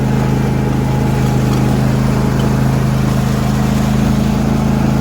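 John Deere D125 lawn tractor's engine running steadily at a constant speed.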